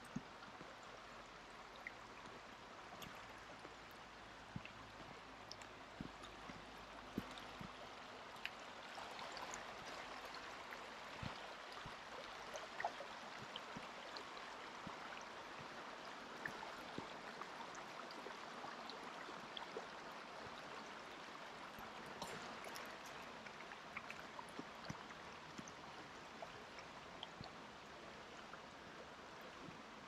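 A stream running steadily, a little louder through the middle, with scattered faint ticks and clicks.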